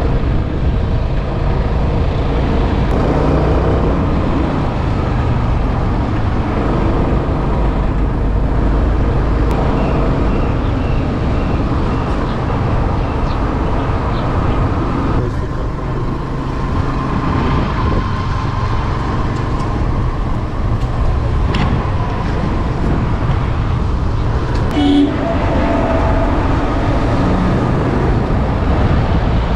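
Suzuki Access scooter under way, its small engine running steadily beneath heavy wind and road noise on the microphone. A brief, louder sound breaks through near the end.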